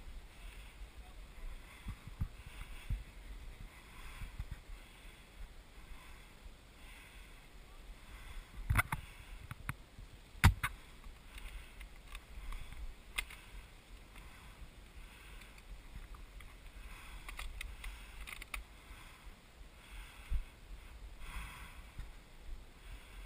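Low rumble of wind and handling noise on a GoPro's microphone, broken by a handful of sharp clicks and knocks, the loudest about ten seconds in.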